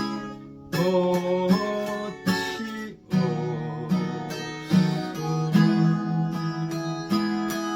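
Acoustic guitar playing strummed chords, a new strum about every second as the chords change, with no singing.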